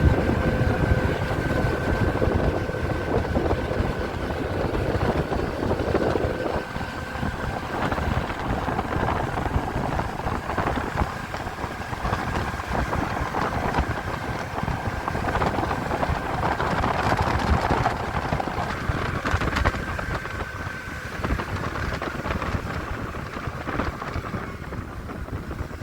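Wind rumbling and buffeting on the microphone outdoors, with a faint steady high-pitched whine through most of it that stops near the end.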